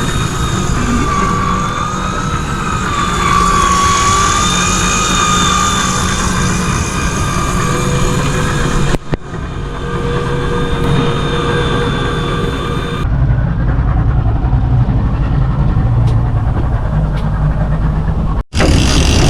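Boat engine running steadily with a wavering whine over a low rumble, in clips cut together; after a cut about two-thirds of the way through only the low rumble is left.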